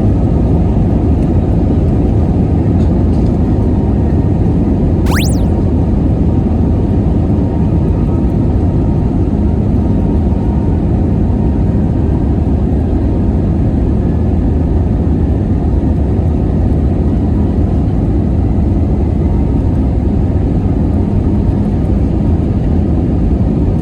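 Jet airliner at takeoff, heard from inside the cabin: a loud, steady rumble of the engines at takeoff power and the run down the runway.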